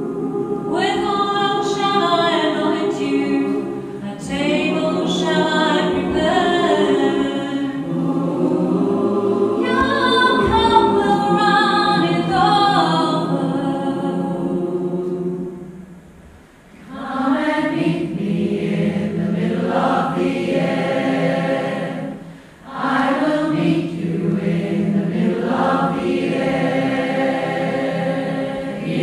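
Large choir, mostly women's voices, singing in harmony under a conductor. The singing drops away briefly twice, about halfway through and again a few seconds later, then comes straight back in.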